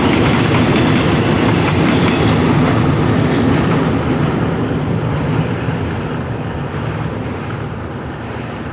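Passenger carriages of a diesel-hauled train rolling across a steel truss bridge: a steady, loud rumble and clickety-clack of wheels on rail. It fades over the last few seconds as the train moves away.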